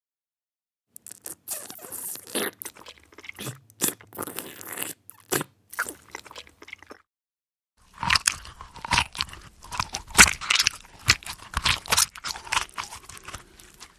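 A man chewing food with rapid crunching and munching, in two runs split by a short pause; the second, starting about eight seconds in, is denser and louder.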